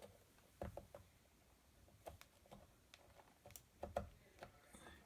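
Faint, scattered clicks and taps of hands and a small tool working a laptop's plastic access panel open.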